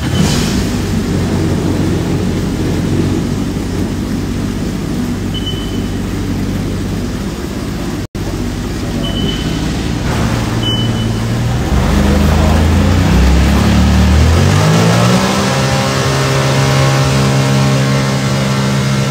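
Sea-Doo GTI jet ski engine running hard in a test tank after starting. About 12 s in its pitch dips, then it climbs and holds at high revs under throttle for the last few seconds, the jet pump throwing spray.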